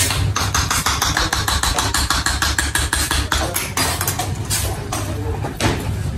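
Rapid knife strokes chopping through a slab of sweet onto a marble counter, several sharp taps a second that thin out after about three and a half seconds, over a steady low hum.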